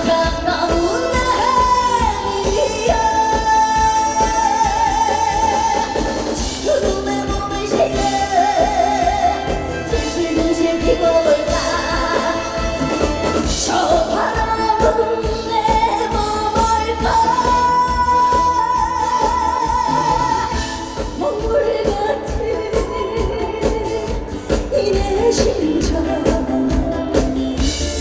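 A woman singing a trot song live, with wavering held notes, over musical accompaniment with a steady beat.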